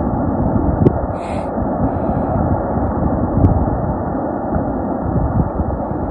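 Large rockslide pouring rock and debris down a mountainside into a reservoir: a low, steady rumble with a few short knocks.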